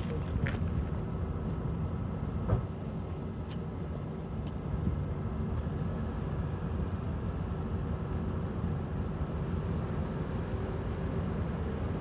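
Steady low rumble of outdoor background noise with a faint constant hum, and a single click about two and a half seconds in.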